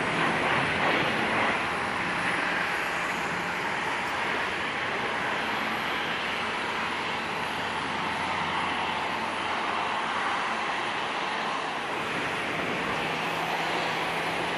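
Jet airliner engine noise carrying across the airfield: a steady rush, a little louder in the first couple of seconds.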